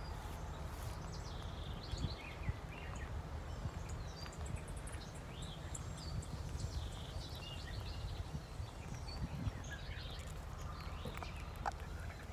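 Small birds chirping and calling here and there over a steady low rumble, with faint soft ticks.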